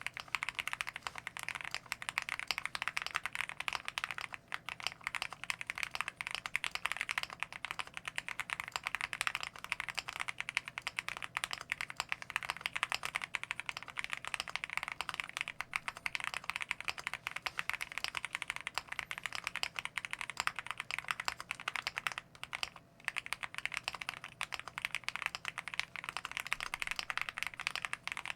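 Continuous fast typing on a stock Zoom65 mechanical keyboard with unlubed Akko Jelly Black linear switches: a dense stream of keystroke clacks, with one brief pause late on.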